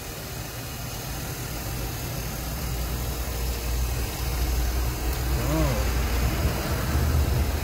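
Idling engine, a steady low hum that grows slightly louder over the few seconds.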